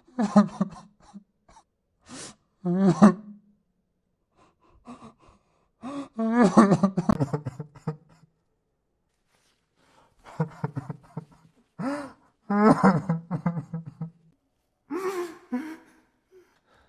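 A man sobbing: crying in short bursts with a trembling pitch, broken by sharp gasping breaths and brief silences.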